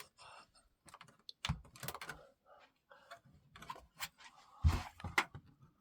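Scattered light clicks and knocks of handling, like keys being tapped, with a louder thump about three-quarters of the way in.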